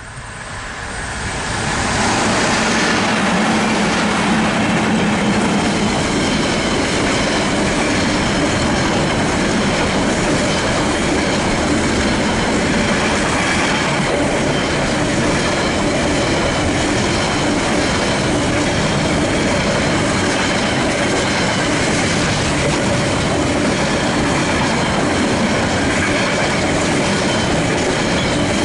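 Container freight train hauled by New Zealand EF class 30 electric locomotives rolling past close by: a dense, steady noise of wagon wheels running on the rails, with faint thin high tones from the wheels. It swells over the first two seconds and then holds steady as the wagons go by.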